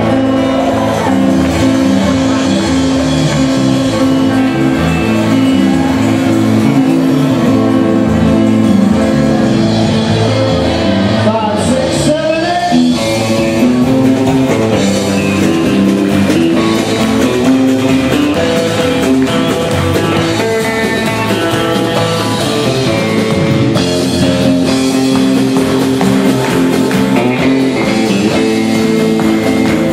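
Band playing an instrumental passage led by guitar over a moving bass line, with a sliding guitar note about twelve seconds in.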